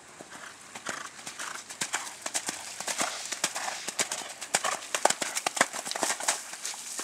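Hoofbeats of a cantering grey horse striking wet sand arena footing, a quick uneven run of thuds and slaps that gets louder about a second in.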